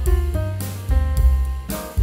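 Instrumental background music with a drum kit and a walking bass line.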